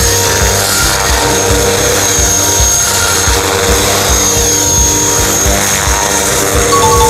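Background music with a steady beat, laid over the steady whine of a small electric radio-controlled helicopter hovering low.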